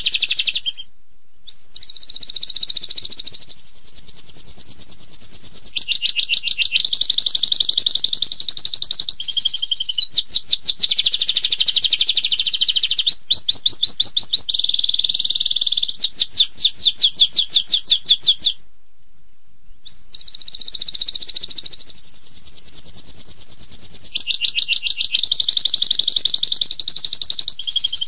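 Domestic canary singing a long song of rapid-fire trills ('tembakan'), one run of quickly repeated notes changing into the next every second or few. There are two short pauses, about a second in and about two-thirds of the way through.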